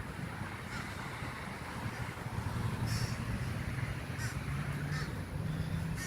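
Wild birds calling: about four short, sharp calls spread over a few seconds, over a steady low rumble.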